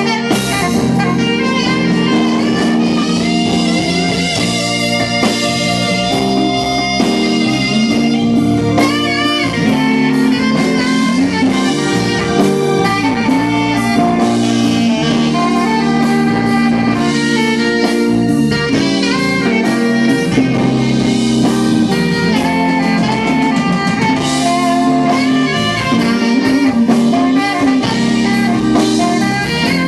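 Live band playing a slow ballad: a saxophone carries the melody in long, wavering notes over electric guitar, bass, keyboard and drums.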